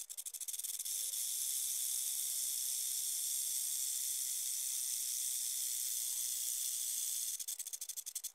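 Snake hissing, a high airy hiss. It flutters rapidly for the first second, runs smooth and steady, then flutters again near the end.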